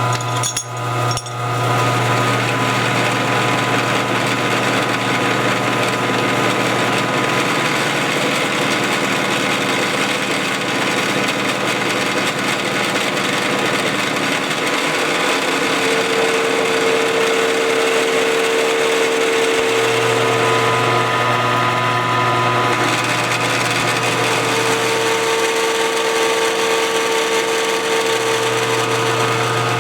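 Milling machine running steadily, its cutter milling a mild-steel tool blank, with a steady motor hum and several steady whining tones over the cutting noise.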